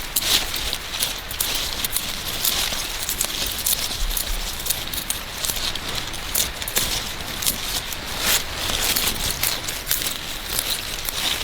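Dense, continuous crackling and rustling of dry plant matter being handled or trodden, with sharp clicks throughout.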